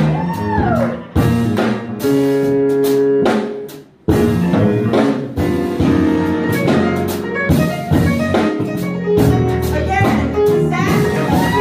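Live jazz-blues band playing: electric bass, keyboard and drum kit, with frequent drum hits over held chords. The band drops out briefly about four seconds in, then comes back in together.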